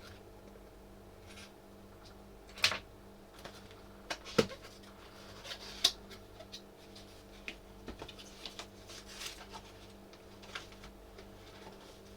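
Parcel packaging being opened and handled on a workbench: scattered clicks, taps and rustles, with three sharper knocks at about two and a half, four and a half and six seconds in, over a steady faint hum.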